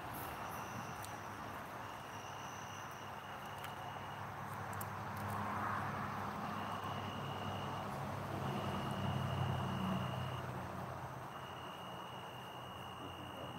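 Insects trilling in steady stretches of a second or two with short gaps between them, over a low hum that swells and is loudest in the middle.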